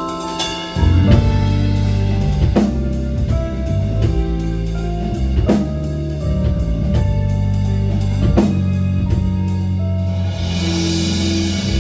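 A rock band playing an instrumental passage, with electric guitar chords, bass and a drum kit keeping a steady beat. A cymbal swell rises near the end.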